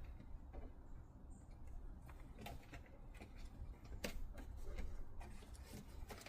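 Scattered light clicks and taps from handling and pressing a self-adhesive sound-deadening sheet onto a van's metal roof panel.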